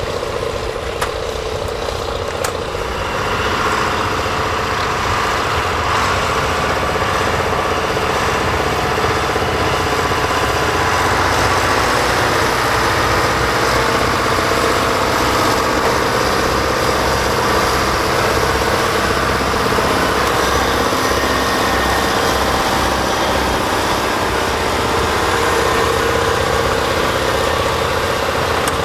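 John Deere 8850's 15.6-litre V8 diesel engine running steadily, a little louder from about four seconds in.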